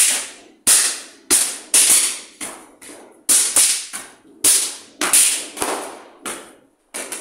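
Small firecrackers cracking one after another as a child stamps on them: about fifteen sharp snaps, unevenly spaced at roughly two a second, each trailing off briefly.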